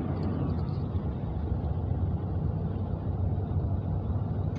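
Steady road noise inside a moving car: a low, even rumble of tyres and engine.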